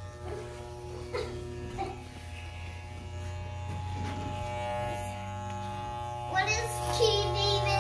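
Electric hair clippers buzzing steadily as they cut through a man's hair.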